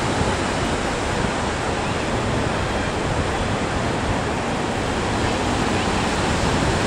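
Sea waves breaking on the shore, with wind, making a steady, even rush.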